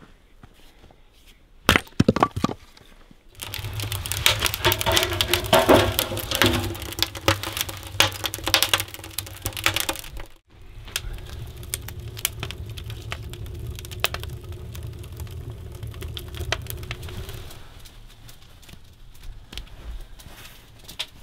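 Axe striking a firewood round, two sharp splitting cracks about two seconds in. Then a wood fire crackling and popping in a small metal tent stove over a steady low rumble, louder at first and quieter after a short break about ten seconds in.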